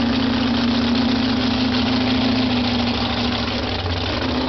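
Supercharged jet-boat engine running steadily at low revs, warming up. It holds an even, deep note, with a slight dip in pitch near the end.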